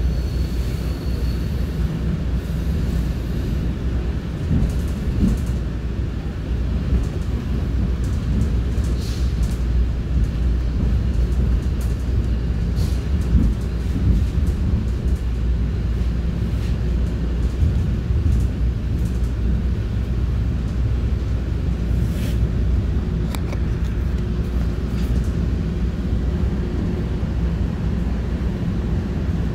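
Electric commuter train running along the track: a steady low rumble with a faint hum and occasional light clicks and knocks.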